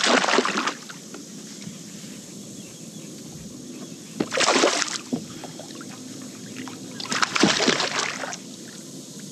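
Water splashing in three short bursts, at the start, about four seconds in and about seven seconds in, the last the longest: a hooked bass thrashing at the surface beside a fishing kayak during the fight.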